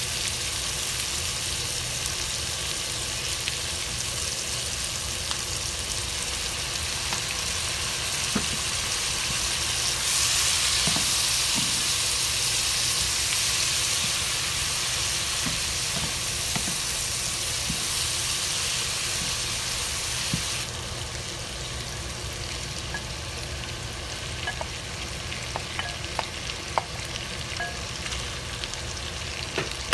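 Beef strips and sliced onions sizzling in a frying pan while being stirred with a wooden spoon, with small scattered clicks of the spoon against the pan. The sizzle swells louder about a third of the way in and drops suddenly about two-thirds through.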